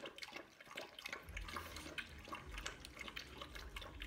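Two French bulldogs, an adult and a puppy, eating from one food bowl: quick irregular wet smacks and clicks of chewing and licking. A low steady hum comes in about a second in.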